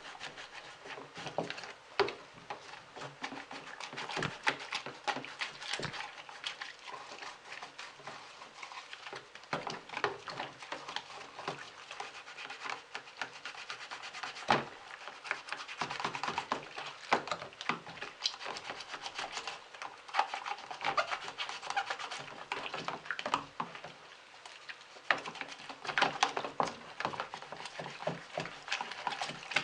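Scrubbing and rubbing while the blades and frame of a ventilation fan are cleaned by hand, with irregular clicks and knocks as the parts are handled.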